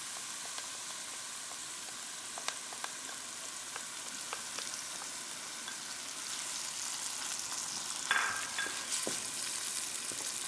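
Desi ghee sizzling in a metal pan of halwa mixture while a wooden spatula stirs it. The sizzle gets louder about six seconds in, with a few light ticks and a louder scrape and knock of the spatula against the pan about eight seconds in.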